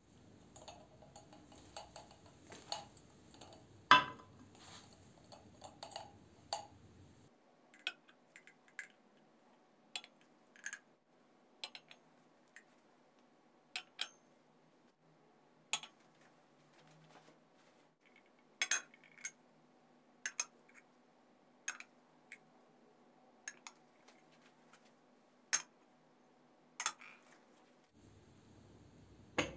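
Small ceramic cups being set down and turned over by hand on a marble slab: a string of irregular sharp clinks and knocks of ceramic on stone, the loudest about four seconds in.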